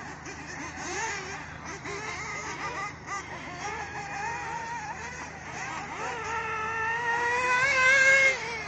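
Radio-controlled off-road buggies running around a dirt track, their small motors whining in pitch that rises and falls with the throttle. Near the end one buggy climbs to a loud, high, steady whine, then drops away abruptly.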